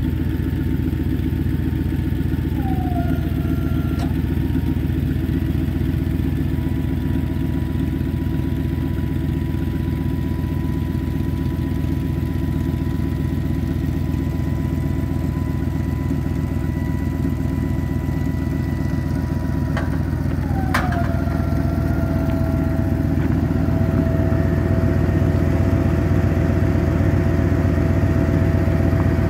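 The Chevrolet 3500 pickup's engine runs steadily while the sprayer's boom is folded up, with a thin whine over the engine noise. The whine drops in pitch twice, a few seconds in and again about two-thirds of the way through, each time near a sharp click.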